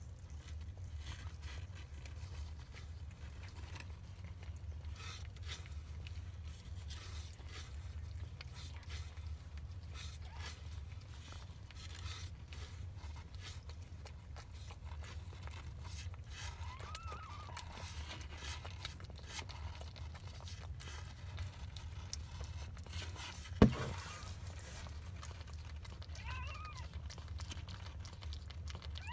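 Mother cat licking and chewing as she cleans a newborn kitten, heard as faint wet clicks, while the kitten gives thin, high mews: one a little past halfway and two near the end. A single sharp knock, the loudest sound, comes shortly before the last mews, over a steady low hum.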